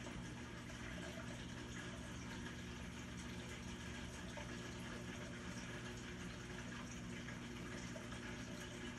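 A steady low hum with an even hiss over it, unchanging throughout; no distinct barks or yelps stand out.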